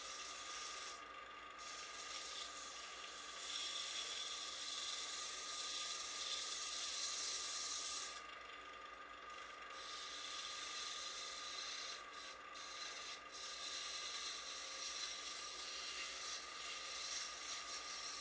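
Sandpaper rubbing against a turned wooden box spinning on a wood lathe: a steady sanding hiss over the lathe's steady running tone. The hiss breaks off briefly a few times.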